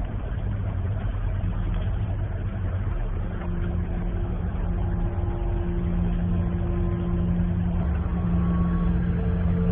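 A steady low rumbling hum with faint held tones above it.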